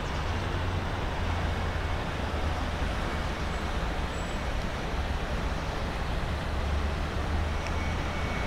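Steady road noise of a car on the move, a continuous low rumble under an even hiss.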